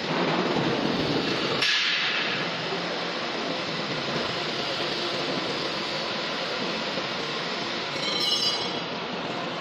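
Welding arc of an automatic longitudinal seam welder running steadily along a tank seam, a continuous hissing noise at an even level. A brief high ringing rises over it about eight seconds in.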